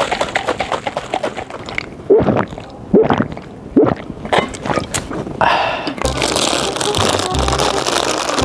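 Loud gulping from a drink can: three big swallows about a second apart, after a run of short clicks. Background music with a steady bass comes in about six seconds in.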